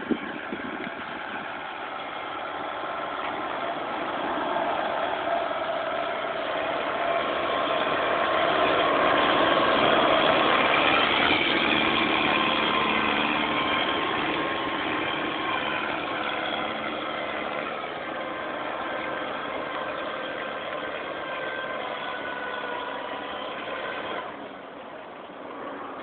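Kubota M7040 tractor's four-cylinder diesel engine running steadily under load as it pulls a three-disc plough through the soil. It grows louder to a peak about ten seconds in, then eases off as it moves away.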